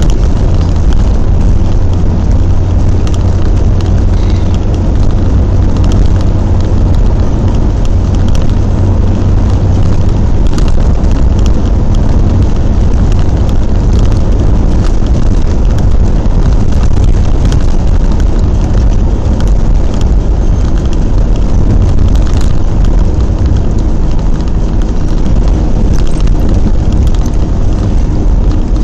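A moving vehicle running steadily at highway speed, heard inside the cabin: a loud, even low rumble of engine and tyres on asphalt, with scattered faint clicks.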